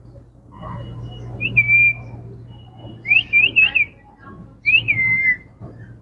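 Indian ringneck parakeet whistling: a rising note held for about half a second, then a quick run of three or four up-and-down notes, then a rising note that falls away into a held tone. A steady low hum runs underneath.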